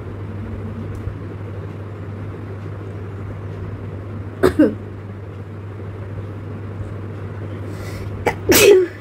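Two sneezes set off by tickling the nose with a long grass stalk: one about four and a half seconds in, and a louder one near the end. A steady low hum runs underneath.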